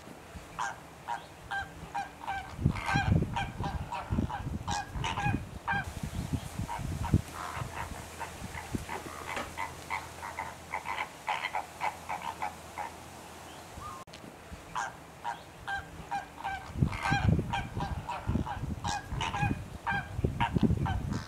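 A flock of greater flamingos honking, a dense chorus of short, goose-like calls overlapping each other, thinning out briefly past the middle and picking up again, with bouts of low rumbling underneath.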